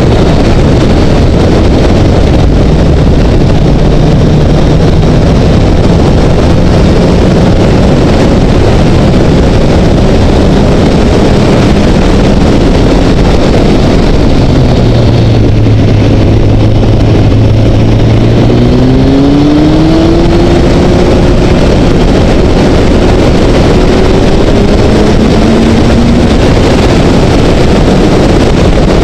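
Honda CBR900RR's inline-four engine at road speed under a steady rush of wind. Its note drops around the middle as the bike slows, then rises as it accelerates again.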